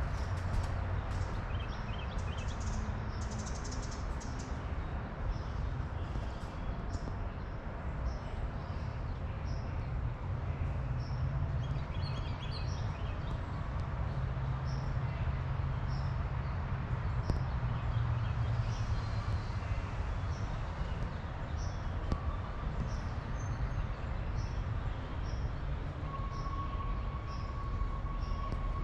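Small birds chirping, with one short high call note repeated about once a second, over a steady low rumble.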